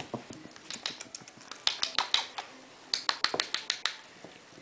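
Rapid, irregular sharp clicks and taps, coming in clusters.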